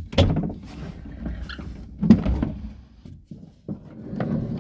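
Clunks and thumps inside a stripped pickup cab as someone climbs in and shifts around: two heavier knocks, about a second and two seconds apart, with lighter rustling and clicks between.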